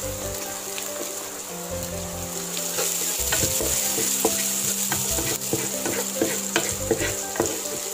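Sliced onions sizzling in oil in a nonstick frying pan, with a flat spatula stirring them and scraping and tapping against the pan in quick, irregular clicks from about three seconds in.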